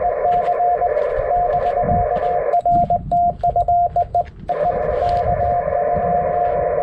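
Morse code (CW) from a ham radio transceiver, a single steady tone keyed on and off in dots and dashes over filtered band hiss. For about two seconds in the middle the hiss cuts out while the keying carries on cleanly.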